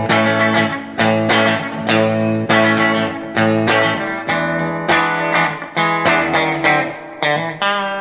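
A Telecaster-style partscaster electric guitar on its bridge pickup, played clean through a Yamaha THR5 amp with a little reverb. Chords are picked and strummed with a fresh attack about every half second, and the chord changes every second or so. It is heard from the amp through a phone microphone, with no other processing.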